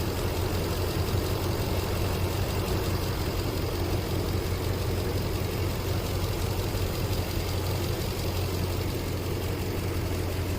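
2005 Nissan Armada's 5.6-litre V8 idling steadily, with an even low hum throughout.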